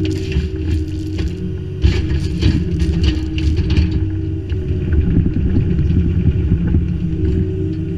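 Kubota U25-3 mini digger's diesel engine running steadily under hydraulic load, heard close up from the machine. Between about two and four seconds in, the stone crunches and clatters as the bucket works the Type 1 stone.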